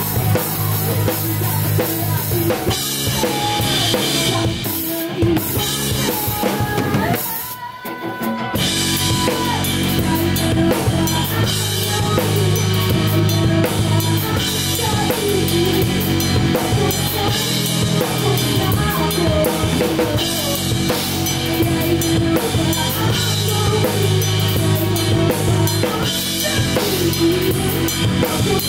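A live band playing a song, led by a close-up acoustic drum kit: fast bass drum and snare strikes with cymbals, over sustained bass and guitar. About eight seconds in, the band briefly drops out and then comes back in full.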